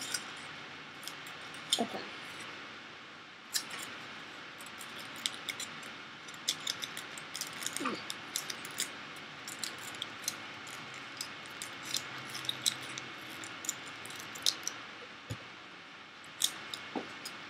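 Aluminium foil crinkling in many small, irregular crackles as foil wraps are handled, twisted and pulled off the fingertips to lift soaked-off nail polish.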